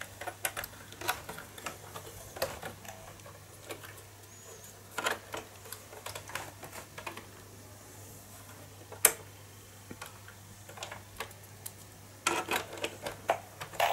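Scattered clicks and knocks of plugs and cables being handled and pushed into the rear ports of a Commodore 64, with one sharp click about nine seconds in, the loudest. A steady low hum runs underneath.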